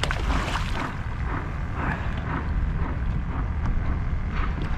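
A hooked snook splashing at the water's surface in the first second, over steady wind noise on the microphone.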